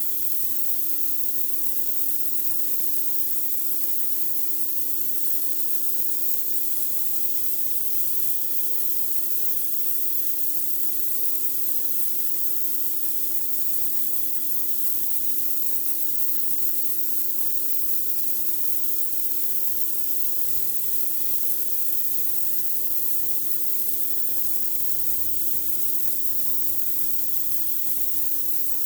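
High-pressure water jet from a pressure washer blasting dirt off a driveway: a steady loud hiss, with the machine's even hum running underneath.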